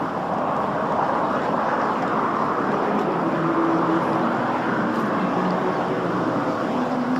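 Steady vehicle engine noise, an even rumble and hiss.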